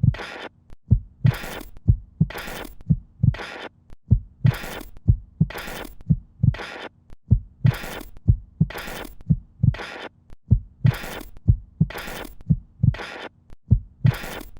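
A heartbeat-like pulse on the soundtrack: low thumps repeating roughly twice a second, each followed by a short burst of hiss.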